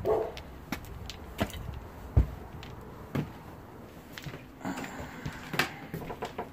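Door and footstep noises of someone walking in through a back door and across a kitchen floor: a short creak at the start, then scattered knocks and footfalls, with one heavy thump about two seconds in.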